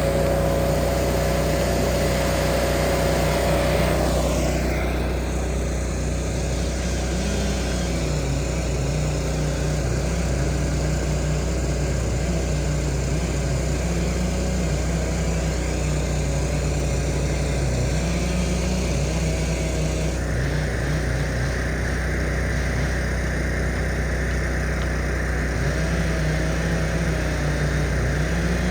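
Engine of heavy equipment running steadily, its pitch rising and falling slightly as the throttle or load changes.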